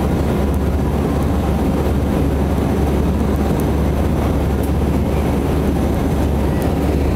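Swiss Airbus A321 jet engines, a steady, even rumble that holds at one level throughout.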